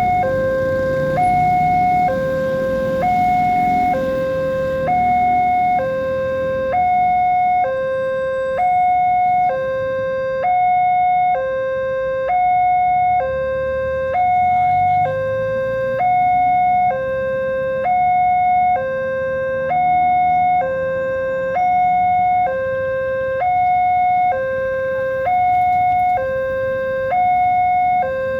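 Indonesian railway level-crossing alarm sounding its two-tone warning, a higher and a lower tone alternating evenly, each lasting just under a second. A low rumble runs underneath.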